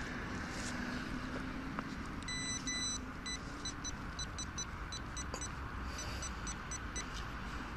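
Metal detecting pinpointer beeping as it is probed in a dug hole: a longer tone about two seconds in, then a run of short beeps until near the end, as the probe picks up the target in the soil. A steady low background rumble runs beneath.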